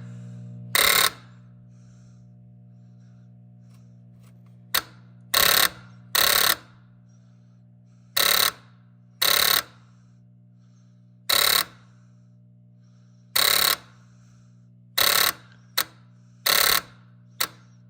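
Ten-Tec Hercules 444 amplifier's stepper-motor band switch cycling through band positions: about a dozen short buzzing bursts, each a fraction of a second, at uneven intervals, over a steady mains hum. The switch is being run back and forth to wipe oxidised contacts clean.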